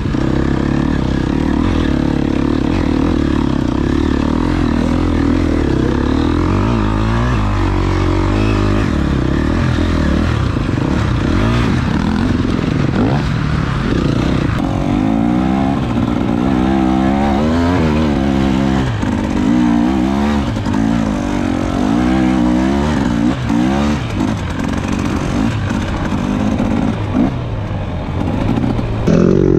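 Enduro dirt bike engine heard from on board while riding, revving up and down as the throttle is worked, its pitch rising and falling again and again in the second half.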